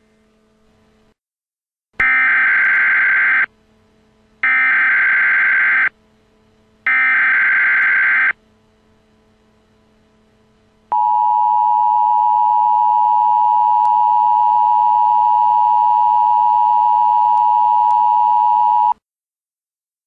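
Emergency Alert System SAME header: three short bursts of screeching digital data, each about a second and a half long. They are followed by the two-tone EAS attention signal (853 and 960 Hz), held steady for about eight seconds. Together they announce a Civil Emergency Message.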